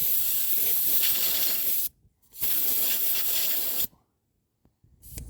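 Compressed air hissing from an air chuck at a tire's valve stem in two bursts of about two seconds each, each cut off sharply. The valve core is not yet screwed back in tight.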